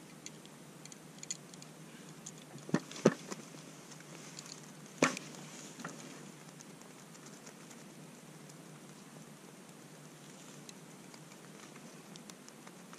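A few sharp knocks and clicks, the loudest about three and five seconds in, with faint ticking between, from an ice fisherman shifting position and handling his short jigging rod on the ice. After that only a faint steady hiss remains.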